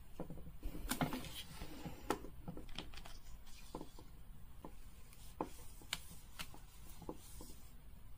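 Hands handling a Baby Alive toy doll and its hair and accessories: soft rustling about a second in, then scattered light clicks and taps.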